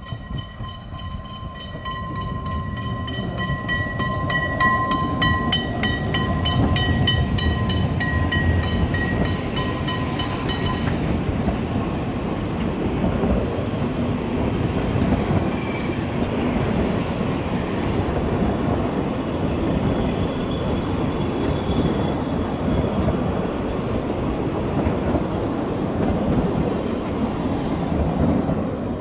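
Narrow-gauge steam train passing. For the first ten seconds or so a steady high tone with even, regular clicks rides over the rolling rumble, then cuts off suddenly. After that comes the steady rumble and rattle of the coaches rolling by.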